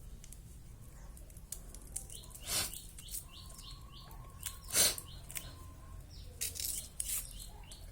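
A bird calling in runs of short, quick falling chirps, about four a second, in two spells. Two louder short rustling noises come about two and a half and five seconds in.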